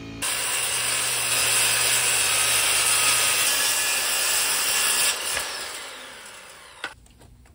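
Corded circular saw cutting through 1/2-inch OSB sheathing, a loud, even cutting sound for about five seconds. The sound then dies away over the next two seconds and stops sharply near the end.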